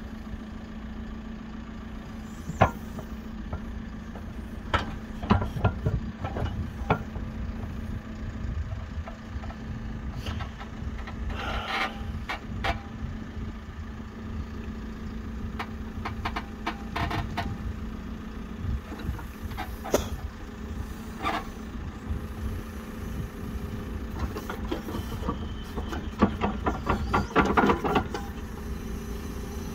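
Backhoe loader's diesel engine running steadily while the rear digging arm scrapes a wide toothless bucket along a wet earth bank, with repeated sharp clanks and knocks from the bucket and arm. Near the end comes a dense cluster of clatter as the arm swings out and a load of earth is dumped.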